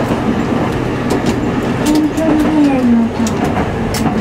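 A woman sings held notes into a microphone, one of them falling in pitch about two to three seconds in, to her own acoustic guitar. Under it runs the steady noise of a moving streetcar, with sharp clicks throughout.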